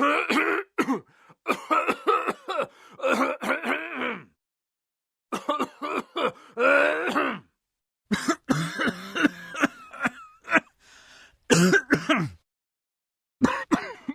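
A person coughing and clearing their throat in short, rough, voiced bursts. The bursts come in four bouts separated by gaps of dead silence.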